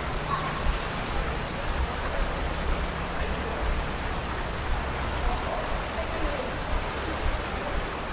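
Steady rush of flowing stream water, an even hiss with a low rumble underneath, from the Cheonggyecheon creek.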